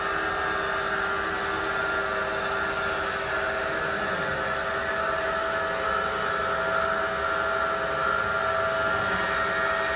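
Vertical revolving contour foam-cutting machine running steadily, its blade slicing a single layer of PU fabric laminated to flexible foam. It makes a continuous machine whine with several constant tones.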